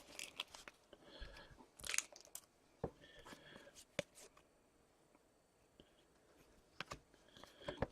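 Faint scattered rustles and light clicks of trading cards and foil pack wrappers being handled, with a few brief, sharper ticks among them.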